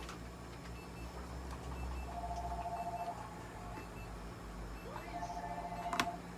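Electronic beeping from clinic equipment: a tone about a second long, twice in full, repeating about every three seconds over a steady low hum. A sharp click near the end, as a small item is set down on the metal exam table.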